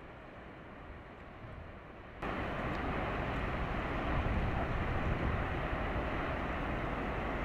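Steady outdoor rumbling noise, which jumps abruptly louder and brighter about two seconds in.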